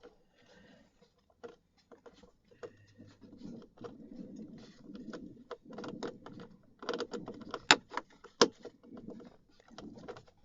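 Screwdriver working a Phillips screw out of a car's instrument-cluster mount: light rubbing and scraping with scattered sharp clicks of metal on plastic, the loudest clicks a little past halfway.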